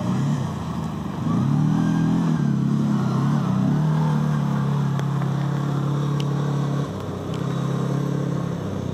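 Quad bike (ATV) engine running under throttle. The revs rise about a second in, hold steady, and drop back near seven seconds.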